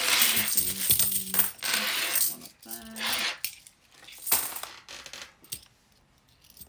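50p coins poured from a plastic bank bag onto a cloth mat: a dense clatter of coins spilling and clinking against each other for about two seconds, then scattered clinks as the pile settles, dying away about a second before the end.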